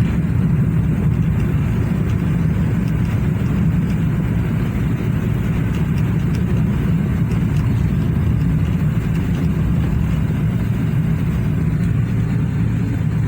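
Steady running and road noise of a Honda N-WGN's three-cylinder engine, heard from inside the car while it is driven. The engine runs smoothly with no misfire, now that a shorted ignition coil and all three spark plugs have been replaced.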